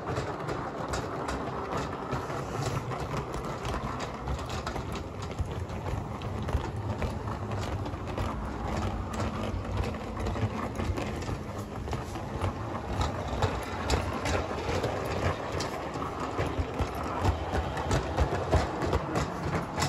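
Bachmann G scale Thomas the Tank Engine model train running along the track pulling wagons: a steady rolling rumble with frequent sharp clicks from wheels crossing the rail joints.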